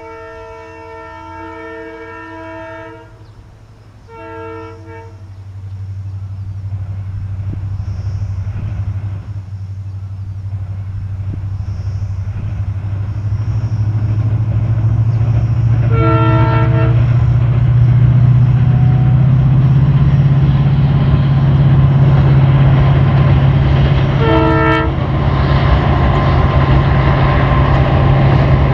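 WDP 4D diesel locomotive with its EMD two-stroke engine, its low drone growing steadily louder as the train approaches. It sounds its multi-tone horn: a long blast at the start, a short one about four seconds in, and two more short blasts about sixteen and twenty-four seconds in.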